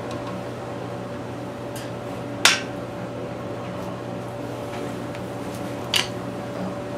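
Two sharp metallic clicks of engine parts or tools being handled, the first about two and a half seconds in and louder, the second near six seconds, over a steady background hum.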